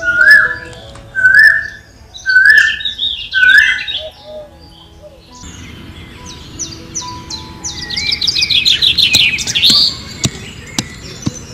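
Birds chirping: a loud, short rising chirp repeated about once a second for the first few seconds, then a quick run of many chirps that peaks near the end.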